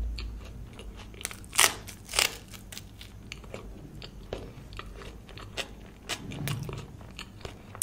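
Close-miked chewing of a full mouthful of food, with many short sharp clicks and two louder ones about one and a half and two seconds in.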